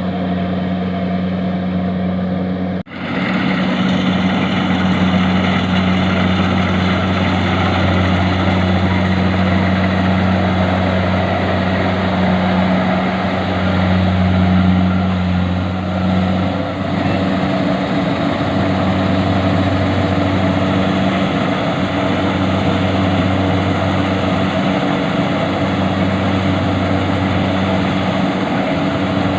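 Engine of a rice-harvesting machine running steadily, a continuous low drone mixed with the clatter and rush of the machinery, broken off for an instant about three seconds in.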